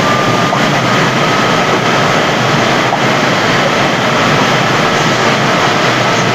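Loud, steady rushing noise like heavy static, with a faint steady whistle running through it.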